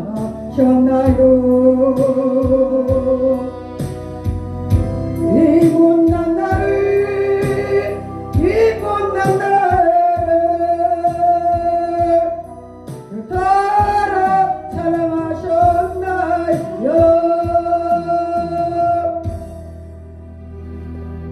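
A hymn sung solo with instrumental accompaniment and a steady beat, the voice holding long notes with vibrato. The singing ends near the end and the accompaniment fades out.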